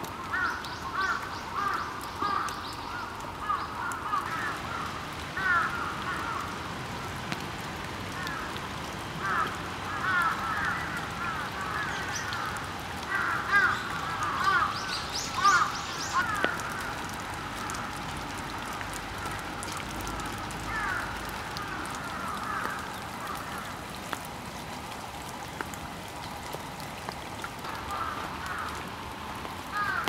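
Wild birds calling over and over in short, overlapping calls, busiest in the first half, thinning out in the middle and picking up again near the end. A few higher-pitched calls sound above them now and then.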